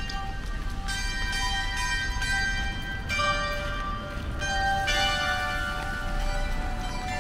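Bells chiming: groups of ringing, bell-like tones struck about every one to two seconds, each note ringing on, over a steady low background hiss.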